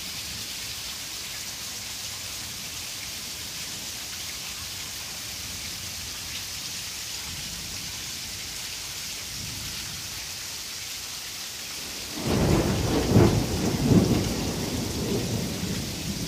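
Heavy rain falling steadily in a thunderstorm. About twelve seconds in, a loud thunderclap starts suddenly and rumbles on, swelling twice, through the end.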